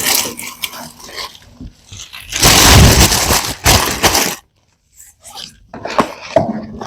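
Rustling and crinkling of drawer liner material being handled and fitted into tool cabinet drawers, loudest for about two seconds near the middle, then a few light clicks and knocks.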